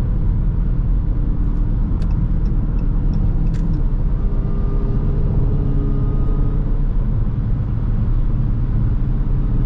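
Dodge Charger Hellcat's supercharged 6.2-litre V8 running at a steady highway cruise, heard from inside the cabin, over tyre and road noise. A few sharp exhaust pops come about two and three and a half seconds in.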